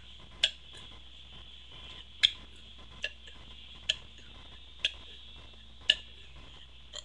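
A person's throat making short, sharp gulping clicks, seven in all, about a second apart, while she works at bringing up a burp without soda.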